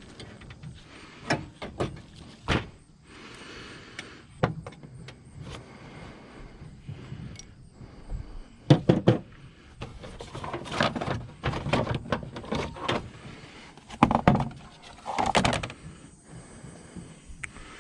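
Irregular knocks, clicks and rattles of car parts and hand tools being handled, with a few louder clunks about nine and fourteen seconds in.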